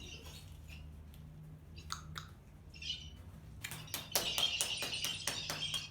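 Bird chirping: a few scattered calls, then from about three and a half seconds in a fast, even run of sharp chirps, about seven a second, over a steady low hum.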